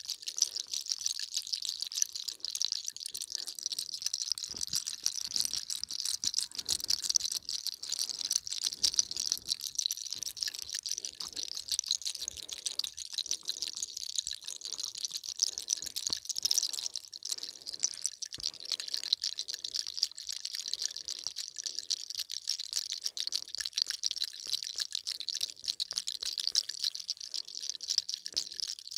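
Hands rubbing and massaging a woman's hair, scalp and shoulders close to the microphone: a steady scratchy crackle, with soft rubbing strokes about once a second.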